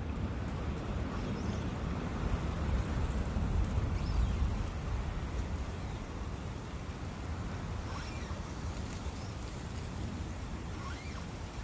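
Forest brook running steadily, an even rushing water sound, with a few faint short bird calls now and then.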